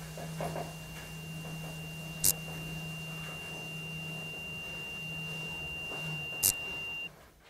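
A steady, high-pitched sine-like tone held over a low electrical hum, with two sharp clicks about two seconds and six and a half seconds in; all of it cuts off suddenly near the end.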